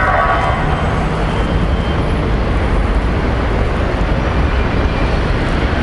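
Steady street traffic noise with a heavy low rumble.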